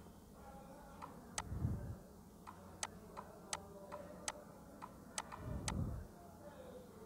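Computer mouse clicking: about a dozen sharp short clicks at an uneven pace, with a low dull thump twice.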